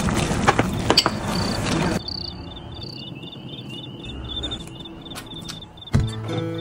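Cricket chirping in short, evenly repeated high pulses. A loud hiss with a few sharp clicks covers the first two seconds, and plucked guitar-like music starts near the end.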